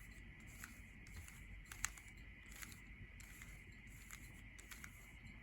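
Faint scattered clicks of a Rubik's Cube's layers being turned, with one slightly louder click just under two seconds in, over a faint steady hum.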